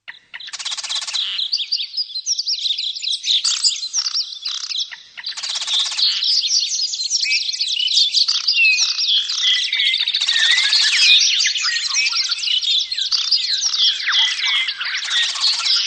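Several birds chirping and singing at once, many quick high notes overlapping, with a harsh buzzing rattle call repeated about every five seconds.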